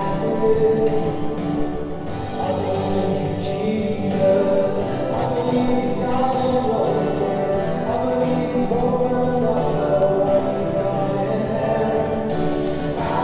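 Worship song with singing over instrumental backing and a steady beat.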